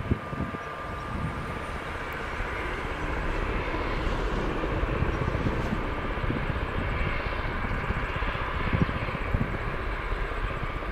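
Airbus A350-1000's twin Rolls-Royce Trent XWB turbofans at takeoff thrust on the takeoff roll: a steady jet rumble with a thin high whine over it, growing louder over the first few seconds and then holding.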